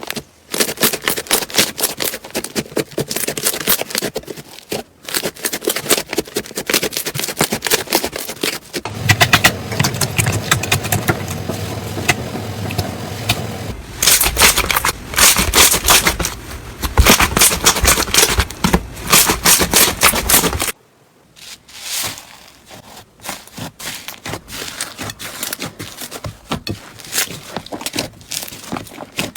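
Slime being squeezed and pressed by hand, a dense run of crackling, popping clicks. The sound changes abruptly a few times from one clip to the next.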